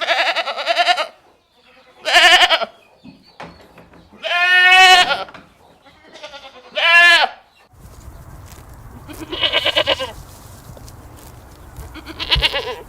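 Goats bleating: four loud, quavering bleats a second or two apart, then, after a cut to a new recording, two more bleats over a steady low rumble.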